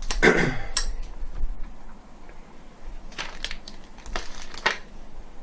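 Hands handling cables and plastic parts inside a PC case: a short scraping slide at the start, then light clicks and rustles in two clusters about three and four and a half seconds in.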